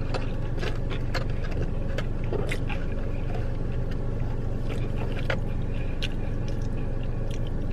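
Steady low hum inside a car, with scattered small clicks and crunches of a person chewing fried food.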